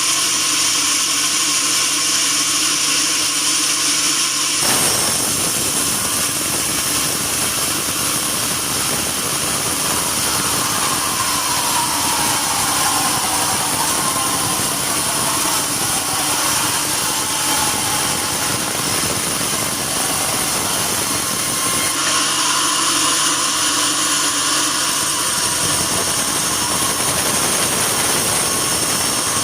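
Sawmill bandsaw running steadily with a high-pitched whine. From about five seconds in until near the end the sound turns fuller and rougher, as the blade cuts through a log.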